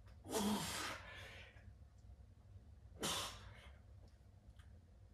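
A man's forceful breaths out, two sharp exhalations about three seconds apart, from the effort of a set of bicep curls.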